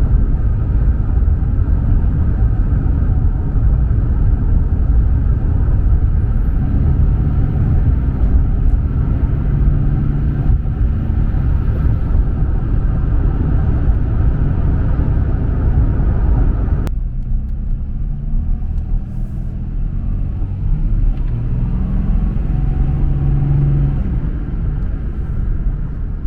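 5.9 Cummins turbo-diesel in a 2003 Dodge Ram 2500 running with a steady low rumble, its Holset turbo letting out a faint high whistle that rises and falls twice as it spools up and down, heard more plainly through an open intake hose with the factory air muffler removed. The sound changes abruptly about two-thirds of the way through.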